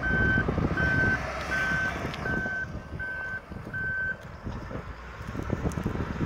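Wheel loader's back-up alarm beeping at an even pace, about every three-quarters of a second, six beeps that stop about four seconds in, over the low rumble of the machine's engine running.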